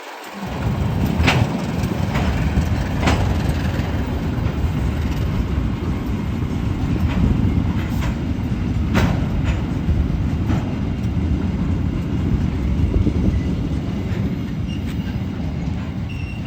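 Train rolling past close by: a loud, steady rumble with irregular sharp clicks of wheels passing over rail joints.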